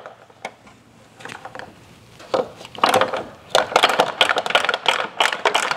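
Hand tools clicking and rattling against metal at a car door's hinges, sparse and faint for the first couple of seconds, then a dense run of rapid sharp clicks for the last few seconds.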